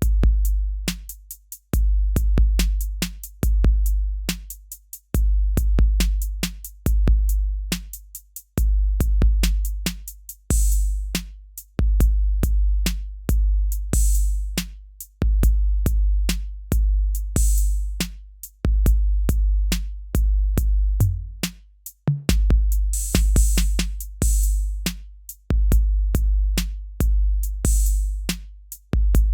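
Background music with a steady electronic drum-machine beat and deep bass hits.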